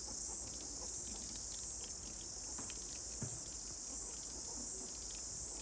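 High-pitched insect chorus, a steady shrill drone that pulses gently about once a second, with a few faint small clicks and a soft knock about three seconds in.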